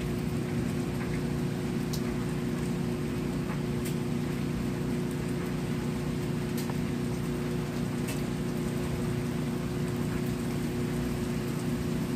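Steady rain falling, with a few sharp drip ticks close by and a steady low hum underneath.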